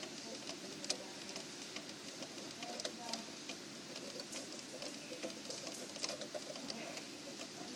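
Antique Waterbury Clock Co. alarm clock with an eight-day movement ticking faintly.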